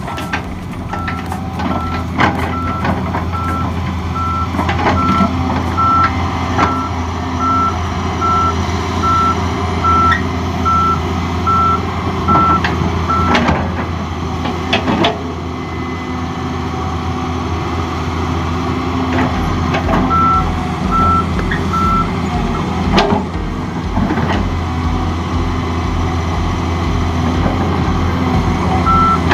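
Hydraulic excavator's diesel engine running steadily as it digs, with its warning alarm beeping about twice a second through the first half, again briefly about two-thirds through and once more near the end. Scattered knocks from the bucket striking rock and soil.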